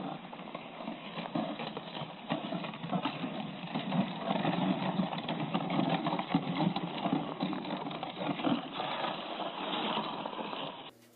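Wooden sled with a hay bale dragged over packed snow: runners scraping and footsteps crunching in an irregular, steady stream.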